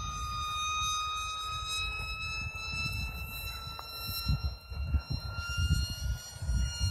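Electric motor and propeller of a 27-inch Sphinx FPV flying wing whining in flight, a steady high tone that rises slightly in pitch. Wind buffets the microphone with low rumbling gusts.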